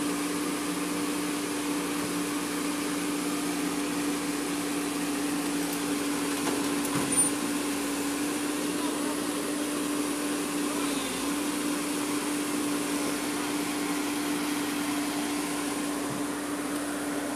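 JCB tracked excavator's diesel engine and hydraulics running steadily with one constant droning tone, as the machine is driven up onto a flatbed truck. A brief knock about seven seconds in.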